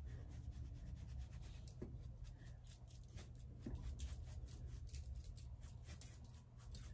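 Seasoning shaker shaken over cabbage slices on aluminium foil: a faint, quick, irregular patter of granules and shaker rattle, over a low steady hum.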